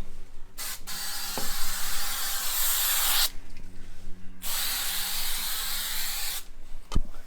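Spray hissing from a nozzle in two long bursts of about two and a half and two seconds, with a short puff just before the first. A sharp knock comes near the end.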